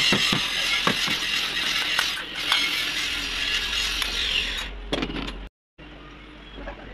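Rapid metallic clicks and clinks of a motor's bearing and end housing being worked by hand, over a steady hiss of workshop noise. After a short break about five seconds in, the sound is quieter.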